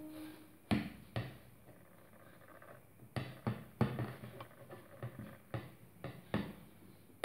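Hands pressing soft clay and a leaf into a spoon over newspaper: irregular small taps, knocks and scratchy rustles, about a dozen in all, clustered after the first second and again from about three seconds on.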